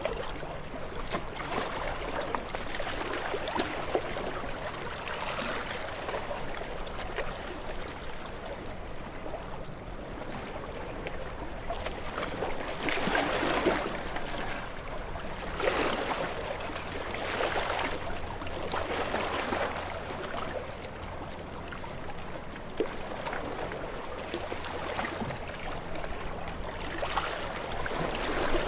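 Ocean waves breaking and washing over rocks, a continuous splashing hiss that swells in repeated surges, the biggest about halfway through.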